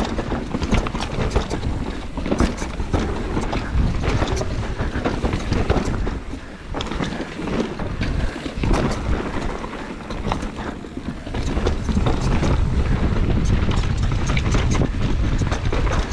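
Downhill mountain bike ridden fast down a dirt trail: wind rushing over the microphone, tyres on loose dirt and stones, and many sharp rattles and knocks from the bike over the bumps. The wind rush grows louder and steadier for the last few seconds.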